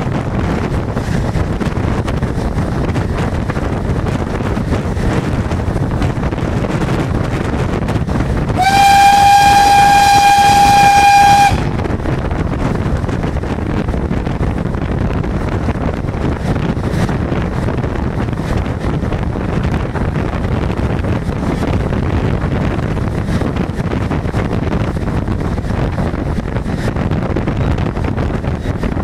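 Steam locomotive running at speed, a steady rush of running and wind noise, broken about nine seconds in by one steam whistle blast of about three seconds on a single steady note that rises slightly as it starts.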